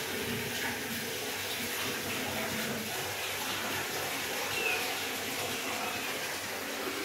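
Kittens mewing faintly, two short high mews about four and a half and six seconds in, over a steady rushing background noise.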